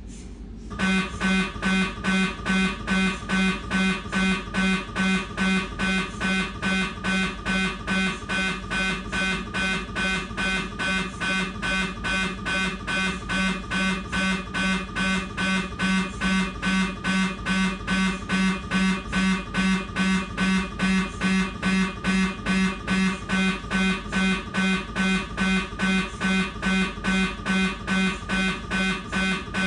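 Siemens MAGNETOM Lumina 3 T MRI scanner's gradient coils running a T2 BLADE fat-saturated transverse abdominal sequence: a fast, even train of pulsed tones, about two to three a second, starting about a second in.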